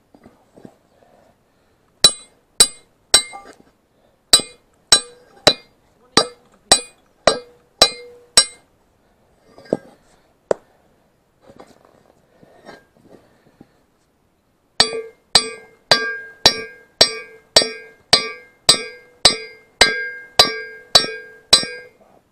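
Hand hammer striking a steel bracket of a tractor front-loader attachment: a run of about a dozen ringing metal blows, roughly two a second, then a few seconds of faint taps, then a second run of about fifteen blows.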